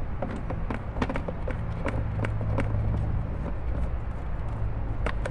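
Screwdriver backing out the screw that holds a toy ride-on Jeep's sound board in its plastic housing: scattered light clicks and scrapes, with a sharper click near the end, over a steady low hum.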